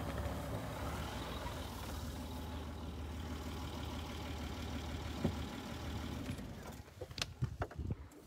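Land Rover Discovery engine running as the SUV drives slowly over grass: a steady low hum that fades out about six and a half seconds in, followed by a few light knocks.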